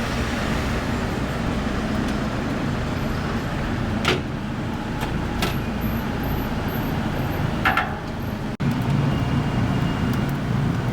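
Steady low rumble of working kitchen machinery, broken by three sharp clinks and a brief dropout near the end.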